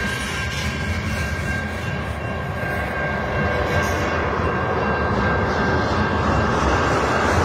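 Freight cars of a Canadian National mixed freight train rolling past at a grade crossing: a steady rumble of wheels on the rails, growing a little louder near the end. A thin steady high tone runs through it.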